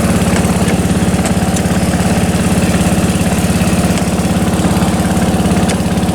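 Riding lawn mower's small engine idling steadily, with an even, rapid pulsing.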